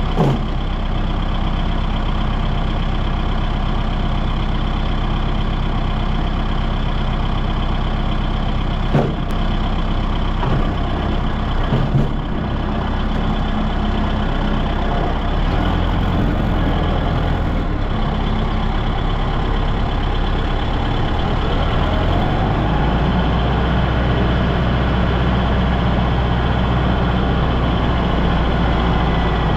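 A large engine idling steadily, its low hum shifting a little about halfway through, with a few short knocks in the first half.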